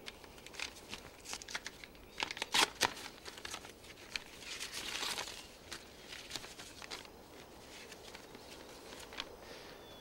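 A paper envelope being opened by hand: scattered crinkles and small rips of paper, the sharpest about two and a half seconds in, and a longer rustling tear around five seconds in.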